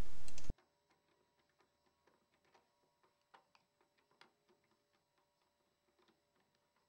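Near silence with a few faint, scattered clicks of a screwdriver tightening an AR15 pistol grip screw, the clearest a little past three and four seconds in. A man's narration cuts off in the first half second.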